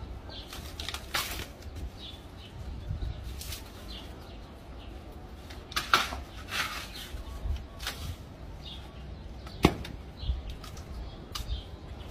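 A blade chopping and cutting into the soft, fibrous stems at the base of a banana plant: a series of irregular sharp chops, the loudest about six and nine and a half seconds in, over a low rumble.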